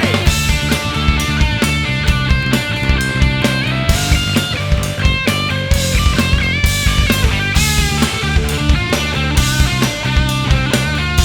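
Instrumental break of a rock song: a steady drum-kit beat and bass under a moving melodic lead line, with no singing.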